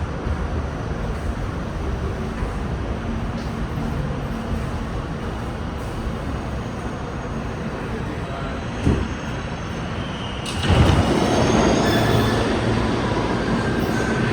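R68 subway train running on the rails with a steady rumble; a single thump comes about two-thirds of the way in, and shortly after the noise jumps louder with a high wheel squeal.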